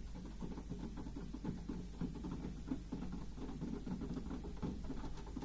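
Pigeons pecking seed off a windowsill: a quick, irregular patter of small taps.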